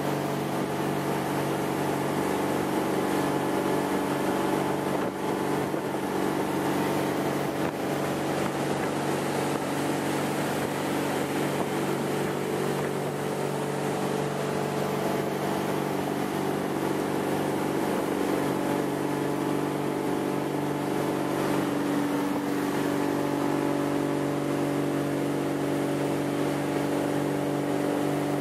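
Ski boat's engine running steadily at towing speed: a constant drone with a rushing hiss over it.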